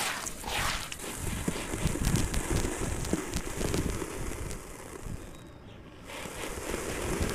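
Hands squishing and kneading a wet sand-and-cement mix in a basin. Near the end, dry cement-sand powder pours onto water in the basin, a grainy pouring sound that grows louder.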